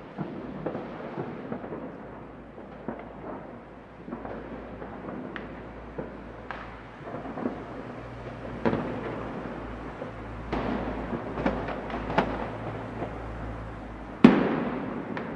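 Fireworks going off all across a city: a steady distant rumble and crackle with scattered sharp bangs, one much louder bang near the end.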